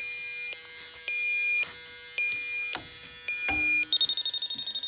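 Electronic refrigerant leak detector beeping: four long beeps about a second apart, then a fast run of rapid beeps from about four seconds in as it picks up refrigerant at the heat pump's indoor coil, the sign of a leaking coil.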